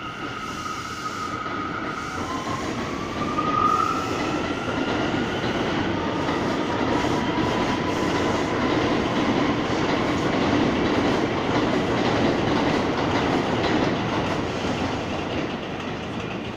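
New York City Subway train pulling out and passing. A steady high whine gives way, about two seconds in, to a motor whine rising in pitch as the train picks up speed, then a loud steady rumble of wheels on the rails. The sound stops abruptly at the end.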